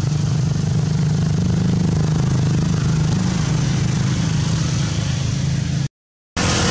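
A steady, low mechanical hum, as of a motor running, which drops out for a moment near the end.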